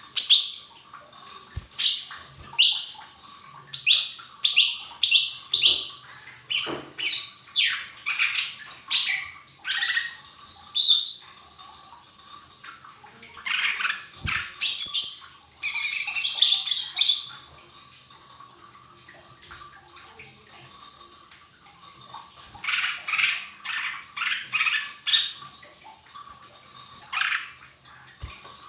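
Lesser green leafbird (cucak ijo mini) calling: quick runs of short high chirps and downward-sweeping whistles, in bursts with a lull in the middle.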